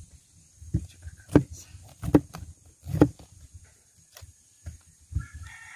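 A series of sharp knocks and clacks from a knife and cabbage being handled over a cutting board, the loudest three about three-quarters of a second apart, over a low wind rumble on the microphone. Near the end a rooster starts crowing.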